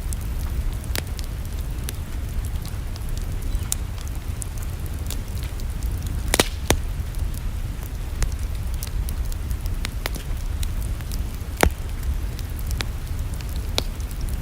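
Wood fire crackling in a fireplace: irregular sharp pops and snaps over a steady low rumble, with a pair of louder pops about halfway through and another, louder one later.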